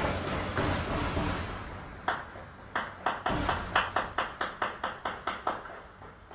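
Celebratory gunfire into the air, heard from indoors: a dense crackle of overlapping shots, then from about two seconds in a run of about a dozen sharp single cracks, two to four a second, each with a short echo, thinning out near the end.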